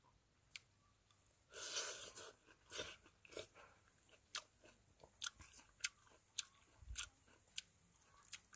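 A person biting into and chewing juicy dekopon (Hallabong) mandarin segments: a wet bite about two seconds in, then a run of short wet mouth clicks and smacks, roughly two a second.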